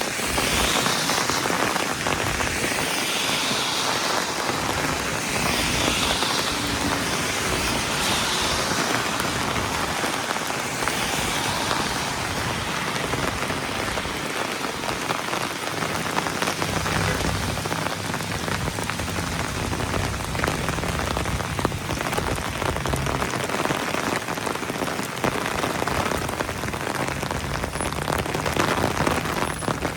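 Heavy rain falling steadily, a dense hiss of drops pattering on hard surfaces.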